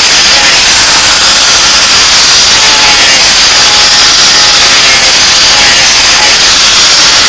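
Angle grinder with an abrasive disc grinding the steel of a rebar kris blade: a steady, loud grinding noise with a whine, unbroken throughout.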